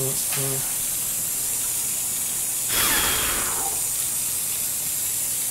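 Dry ice bubbling and hissing in water in a kitchen sink, a steady rushing hiss with a louder gush about three seconds in.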